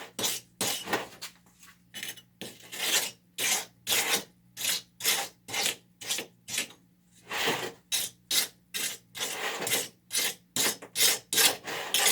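Trowel scraping and pressing wet concrete into a baking-pan mould in quick repeated strokes, about two or three a second, with a brief pause about halfway through.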